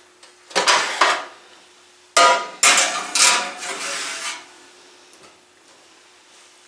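Kitchenware clattering: a short clatter about half a second in, then a louder run of knocks and rattles with a brief ring, as dishes and pans are handled and set down.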